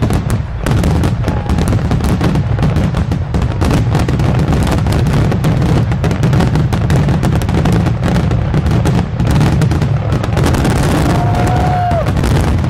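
Aerial fireworks shells bursting in a rapid, overlapping barrage: a dense, continuous run of booms and crackles, heavy in the low end. This is the closing finale of the display.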